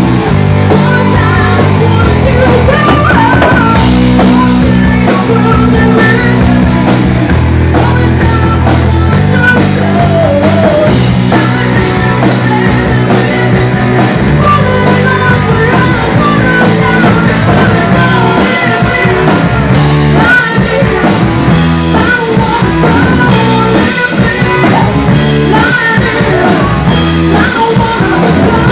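Live rock band: a woman singing into a microphone over electric guitar and a drum kit, loud and unbroken.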